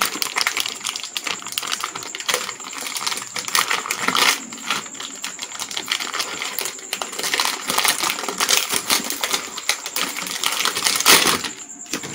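Shiny anti-static plastic bag of a hard disk crinkling and crackling in the hands as the drive is unwrapped, a dense run of small crackles that quiets near the end.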